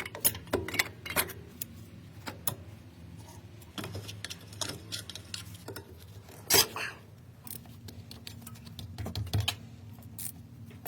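Metal hand tools and drum brake parts clinking and tapping irregularly, with one louder metallic knock about six and a half seconds in, while a new brake wheel cylinder is being fitted.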